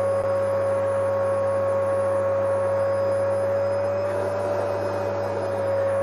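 Vacuum cleaner motor running steadily: a constant whine over a rushing hiss, its pitch drifting slightly up and back about four seconds in.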